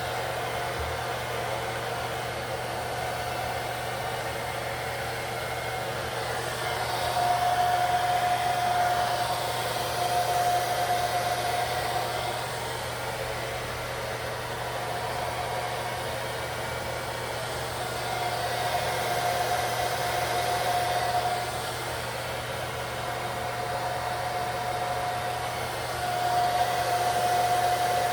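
Hair dryer blowing steadily on lace-wig adhesive to dry it and melt the lace into the skin. Its whine grows louder for a few seconds at a time, four times.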